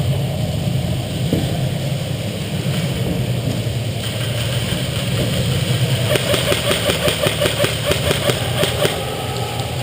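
An airsoft electric gun firing full-auto: a rapid, even string of clicking shots lasting about three seconds, starting a little past halfway, over a steady low hum.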